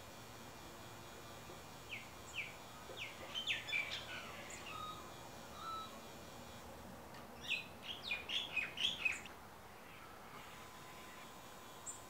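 Birds chirping: a run of quick, short chirps from about two to five seconds in, then a louder flurry of chirps around eight to nine seconds in.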